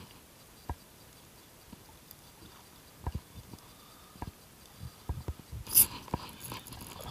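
Soft knocks and rubbing as hands and sleeve handle a fishing rod against a plastic kayak, with a brief loud scrape about six seconds in as a fish is hooked and the spinning reel is grabbed; a faint steady whirr of the reel winding follows near the end.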